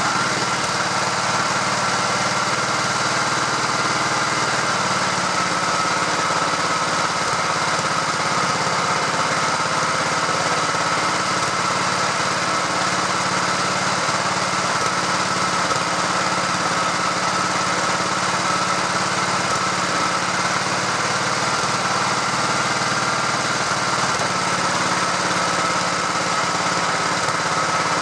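1968 Stothert and Pitt W28 Mk 1 vibrating roller running steadily on blocks during its first functional test, its engine and belt-driven vibration going at an even speed. A steady high whine sits over the engine note.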